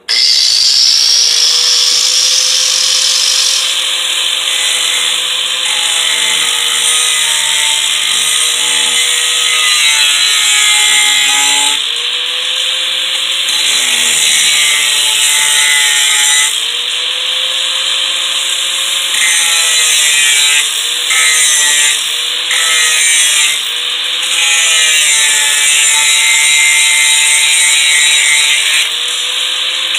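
Angle grinder with a metal grinding disc running and grinding rust off a clamped metal piece, its motor whine sagging and recovering as the disc is pressed on and eased off. The level dips briefly several times, about halfway through and again around two-thirds of the way in, as the disc comes off the metal.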